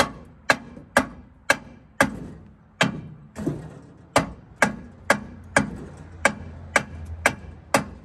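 Hammer blows at a steady pace of about two a second, each a sharp strike with a short ring, on the cylinder head of a 1935 International's seized engine to break the rusted head loose from the block.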